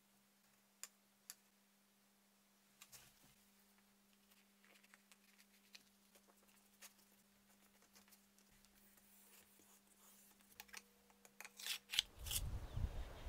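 Faint, sparse taps and clicks of hands handling a small wooden box and tools on a cutting mat, over a steady low hum. Near the end come a few sharper clicks, then a low rumble of wind on the microphone.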